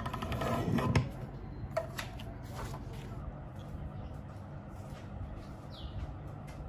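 Guillotine paper cutter: the arm comes down and the blade shears through paper, a cutting sound that grows louder and ends in a sharp knock about a second in. Afterwards a steady low hum with a few light clicks.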